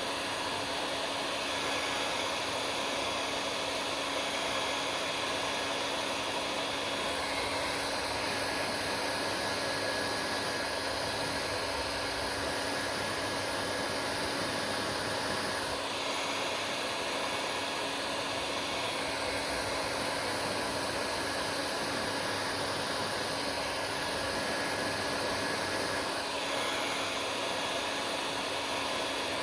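Hair dryer running steadily: a constant rush of air with a faint steady motor tone. Its sound shifts slightly about three times.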